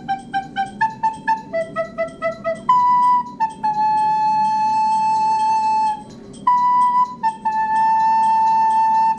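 Recorder playing a simple improvised line: quick short notes, about three a second, hopping between a few pitches, then long held notes of a couple of seconds each, with a brief break in the middle.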